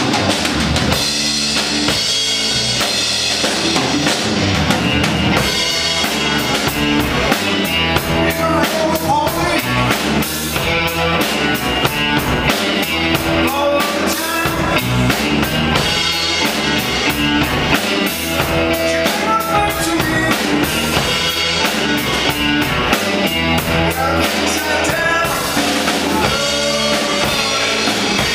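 A live rock band playing an instrumental passage: a drum kit keeping a steady beat under electric guitar and bass guitar, with no singing.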